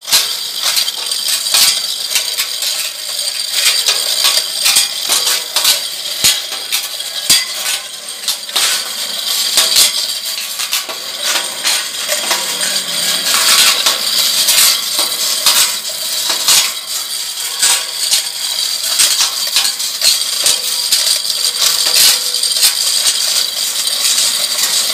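Chain hoist's steel hand chain rattling and clinking steadily as it is hauled to lower a turbine pump's column pipe into a borehole.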